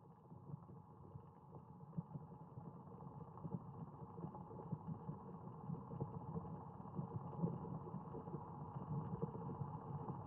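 Low, rumbling ambient drone from a sound-designed soundtrack, steady and slowly growing louder.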